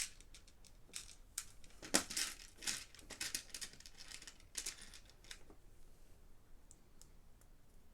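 Plastic Lego Technic parts being handled and fitted together: a run of clicks, clatter and rustling for the first five seconds or so, then a few fainter clicks.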